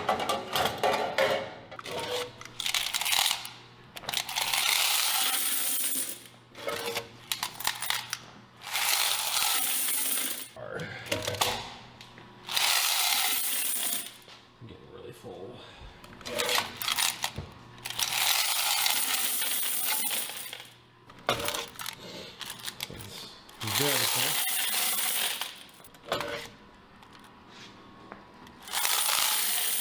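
Quarters poured out of laundromat coin boxes into a bucket, a jingling rush of coins in repeated pours of one to three seconds each with short pauses between.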